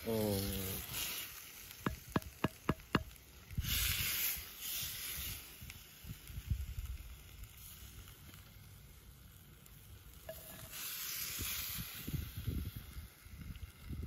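Wooden spoon scraping and knocking against an earthenware güveç pot as hot stew is ladled out onto flatbread, with a quick run of about five sharp taps a couple of seconds in. The hot stew sizzles in two hissing stretches. A brief falling tone opens the clip.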